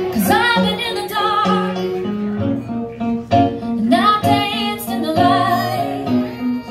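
Live acoustic music: a woman singing with violin and plucked-string accompaniment.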